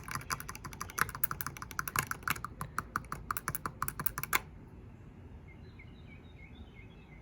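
Rapid, irregular light clicking, several clicks a second, that stops suddenly after about four and a half seconds.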